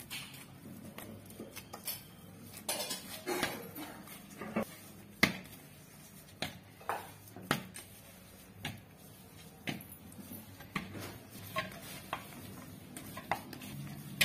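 Stiff puri dough being kneaded by hand in a stainless steel bowl, with irregular knocks and clinks of the metal bowl as the dough is pressed and turned in it. One sharper knock comes about five seconds in.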